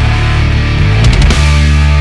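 Loud heavy metal music with distorted guitars and a heavy low end.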